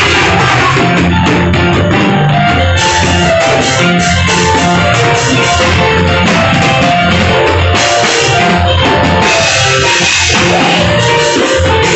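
Loud live African praise music from a church band: a drum kit keeping a steady beat under guitar, playing without a break.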